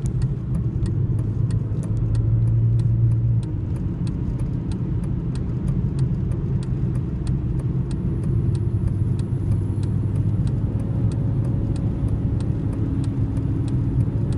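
Car cabin noise while driving: a steady low engine and road drone that swells briefly about two seconds in. A regular series of faint high ticks runs through it, about three a second.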